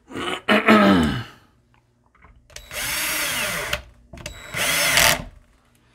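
Cordless drill/driver working the tweeter's mounting screws on a bookshelf speaker, run in three short spells. In the first spell the motor's pitch falls as it slows.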